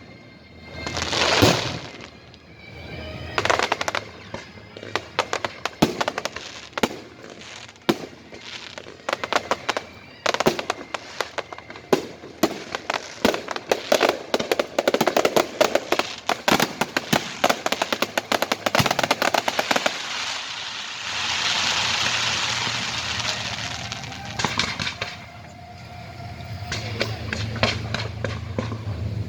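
Fireworks going off: rapid strings of crackling bangs and pops, with a long hissing stretch about two-thirds of the way through.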